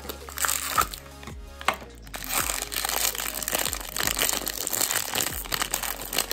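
Shiny plastic-foil blind bag crinkling loudly as it is pulled out of a plastic toy capsule and handled, with a brief lull about two seconds in.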